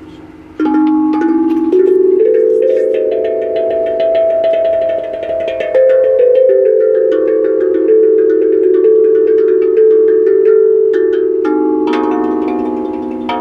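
Tuned percussion instrument struck note by note in a slow melody, each note ringing on and overlapping the next, with a quicker run of strikes near the end.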